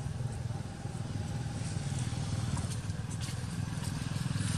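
A motor vehicle's engine running steadily with a low pulsing note, starting to grow louder near the end.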